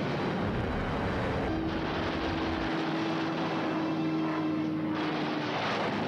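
Propeller aircraft engines droning steadily. A steady hum rises out of the drone about a second and a half in and fades near the end.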